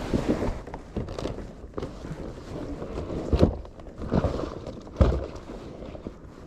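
Scattered knocks and thumps over a steady rushing noise, the loudest thumps about three and a half and five seconds in.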